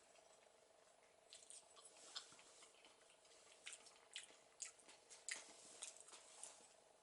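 Faint irregular cracks and taps of a Eurasian jay pecking at and cracking sunflower seeds. About a dozen short clicks come unevenly from about a second in until near the end, over a faint steady hum.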